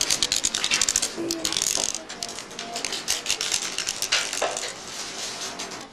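Abacus beads clicking as several children flick them rapidly with their fingers, a dense run of small clacks that is loudest in the first two seconds and sparser after.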